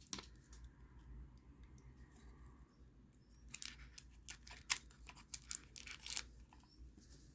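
Faint handling of a small cardboard box and its packaging: a quick run of short scratchy rustles and light taps about halfway in.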